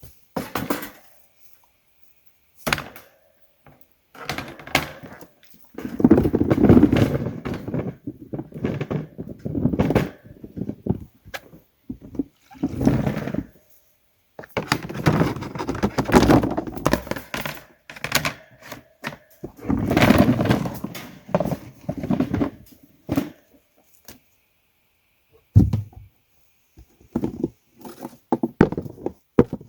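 Carrots being swished and rubbed in a bin of water: bursts of sloshing and splashing several seconds long, broken by short thunks as carrots and the bin knock together.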